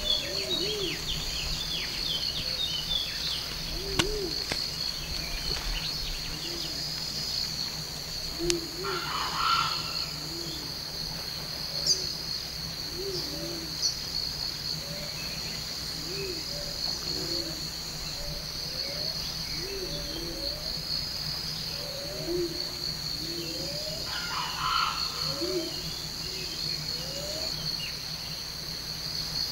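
Forest ambience: a steady, high, pulsing chorus of insects such as crickets, with short low calls repeating about once a second and two brief bird calls, about 9 and 25 seconds in.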